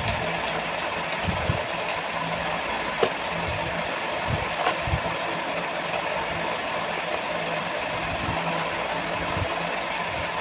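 Steady background hum with a constant low tone, as from a machine running in the room, with a few small clicks of jewellery and plastic boxes being handled, the sharpest about three seconds in.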